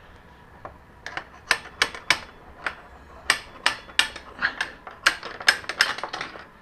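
Hammer blows on a socket used as a punch, driving the front axle out of a 2007 Yamaha R6's front wheel. The metal taps are sharp and irregular, starting about a second in and coming a few times a second.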